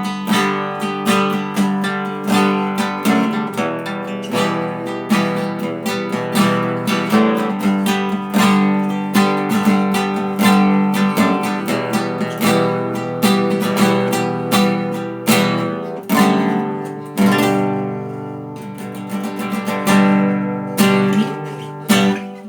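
Acoustic guitar strumming chords in a steady rhythm as the instrumental close of the song, letting one chord ring for a moment near the end before a few last strums.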